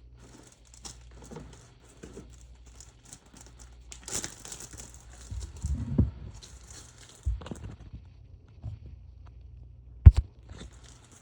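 Plastic bags crinkling and rustling as they are handled and filled with plantain patties, with a few dull thumps and a sharp knock about ten seconds in.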